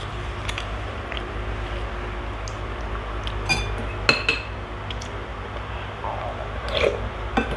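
Metal spoon clinking against a glass soup bowl while scooping broth, with a few sharp, ringing clinks about three and a half to four seconds in and another near the end.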